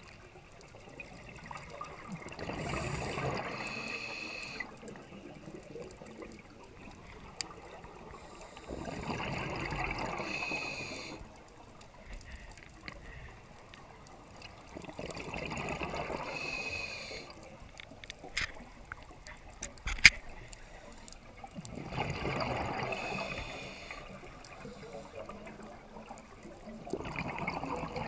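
Scuba diver's breathing heard underwater: bubbles burble out of the regulator in five slow breaths, about six seconds apart, each ending with a short whistle. There is a quieter bubbly hiss between breaths, and a few sharp clicks come about two-thirds of the way through, one of them the loudest sound.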